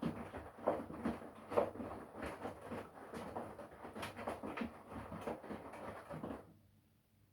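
Front-loading washing machine drum tumbling wet laundry: uneven sloshing and soft thumps as the load falls. The tumbling stops about six and a half seconds in, leaving a faint low hum.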